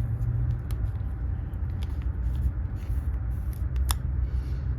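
Small clicks and rustles of trading cards and plastic card holders being handled, over a steady low rumble.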